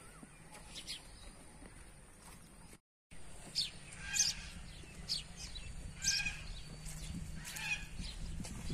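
Birds chirping outdoors: a string of short, high chirps, about one every half second to a second, over a steady low hum. The sound drops out briefly about three seconds in, and the chirps start after that.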